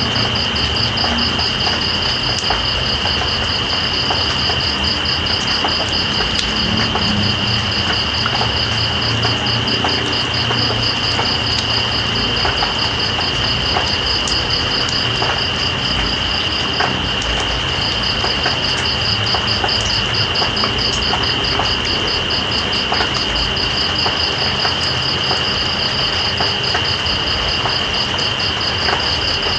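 Steady rain with scattered drop ticks under a chorus of night insects: one insect holds a continuous shrill trill while another calls in rapid, even pulses, which pause briefly just past the middle. A low rumble runs underneath.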